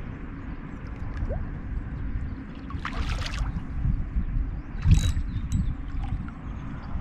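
Kayak on the river: water splashing against the boat about three seconds in and a sharp knock on the hull, the loudest sound, about five seconds in, over a steady low rumble.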